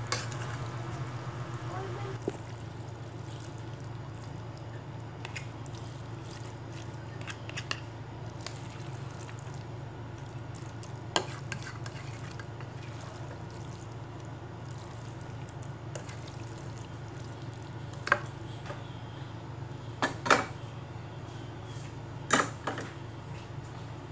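Pasta being stirred and tossed in a creamy sauce in a metal pot with a spatula: soft wet stirring, with a few sharp knocks of the spatula against the pot in the second half, over a steady low hum.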